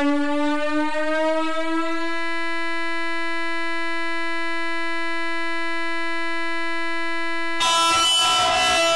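Thirty Dollar Website sequencer retriggering one sound sample faster and faster until the repeats merge into a single tone, which glides upward and then holds at a steady pitch. Near the end a short, harsh, noisy burst replaces it.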